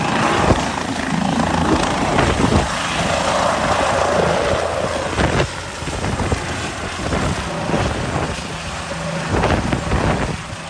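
Helicopter running steadily with a loud, continuous drone.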